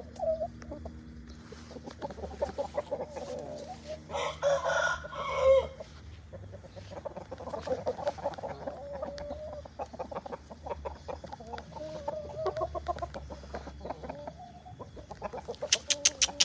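Young Bangkok gamefowl (Thai fighting chickens) clucking, with one rooster crowing about four seconds in. A quick run of sharp ticks near the end.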